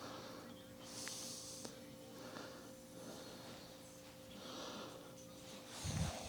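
A man breathing audibly through his nose close to the microphone, soft puffs about every second and a half, over a faint steady hum. A single low thump near the end.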